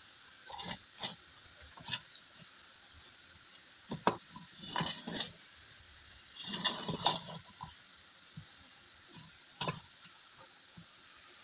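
Handling noise: irregular knocks, taps and rubbing as hands touch the amplifier board and move the phone, a few scattered clicks and two longer rustling bursts, over a faint steady hiss.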